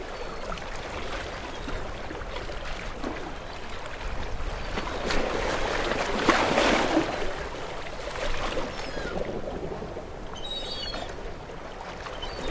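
Water splashing and lapping, swelling for a couple of seconds about six seconds in.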